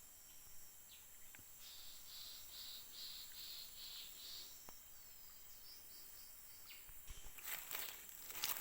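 Tropical forest insects droning steadily at a high pitch, with a run of about seven evenly spaced high chirping notes, a little over two a second. Near the end, rustling of leaves and undergrowth starts.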